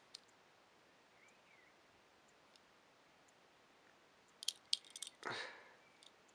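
Mostly quiet, with a faint click near the start, then a quick cluster of light clicks and taps about four and a half seconds in and a short soft rustle, as fingers handle and turn over a small die-cast toy car with a plastic base.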